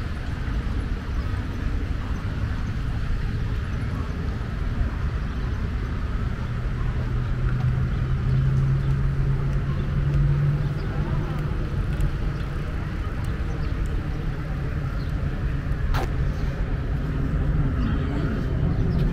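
Steady low road-traffic rumble, with one vehicle's engine drone swelling and fading about midway and a single sharp click near the end.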